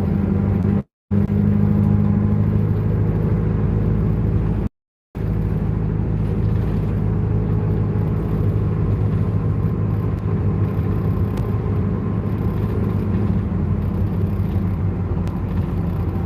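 Steady engine drone and road noise of a bus, heard from inside the passenger cabin while it drives. The sound cuts out completely twice, briefly about a second in and for about half a second near five seconds in.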